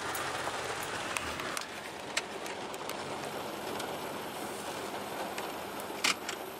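Steady hiss of heavy rain falling on a flooded street, with a few sharp ticks of drops or splashes.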